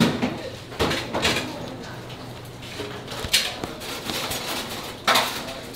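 Kitchen prep at a wooden cutting board: about five sharp knocks and clatters as raw beef rib meat and a knife are handled, the loudest at the start and about five seconds in, over a low steady hum.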